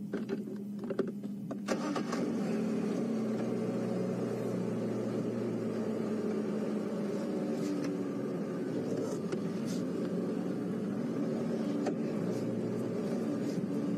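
Safari game-drive vehicle's engine starting about two seconds in, then running steadily with a low hum.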